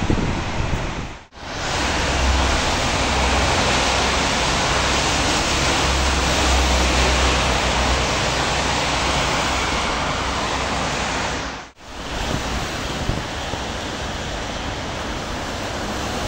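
Steady rushing noise of wind and rain, with a low rumble of wind buffeting the microphone. It drops out briefly twice, about a second in and near twelve seconds.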